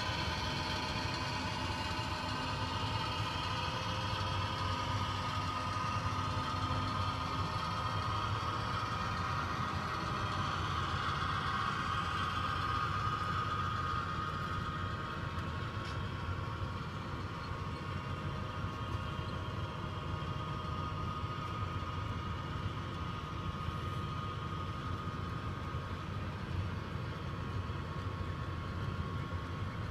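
Model grain train running: three model Canadian National GP38 widecab locomotives pulling hopper cars over a model bridge, with a steady engine-like hum and a whine over the rumble of the cars rolling on the track. The whine swells a little in the middle and then eases off.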